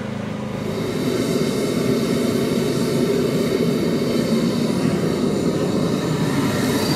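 Model jet turbine engine running: a steady rushing noise that grows louder about a second in and then holds.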